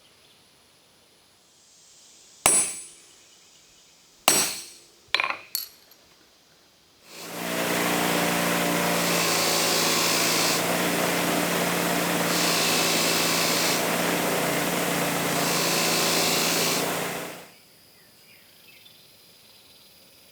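Four sharp metal knocks, then a power tool runs steadily for about ten seconds, its high hiss swelling three times before it stops.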